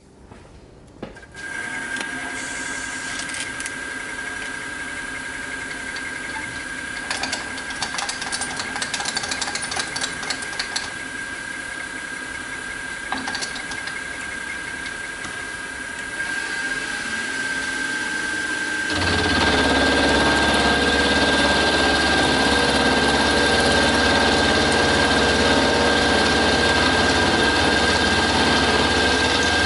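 Chinese PM-25MV-clone mini milling machine starting up about a second in and running with a steady high whine. A little past the middle the end mill begins cutting a metal block under flood coolant, and the sound turns louder and rougher with a low rumble for the rest of the cut.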